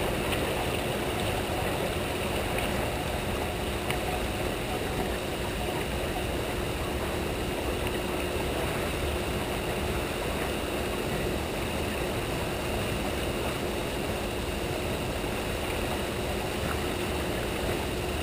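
Steady rush of churning tailwater below a hydroelectric dam, with a faint steady hum underneath.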